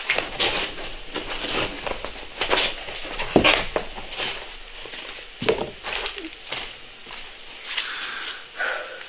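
Cardboard packaging, foam inserts and paper wrapping being handled: irregular rustling, crinkling and scraping as pieces are pulled out of a box.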